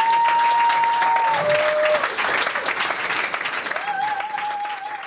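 Audience applauding, with long, high, held cheers from someone in the crowd: one rising into a sustained note at the start and a wavering one about four seconds in.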